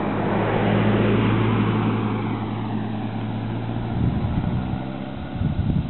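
A motor vehicle going by on the road: a rush of sound that swells to a peak about a second in and fades with a falling pitch, over a steady engine hum that stops about four seconds in. Wind buffets the microphone near the end.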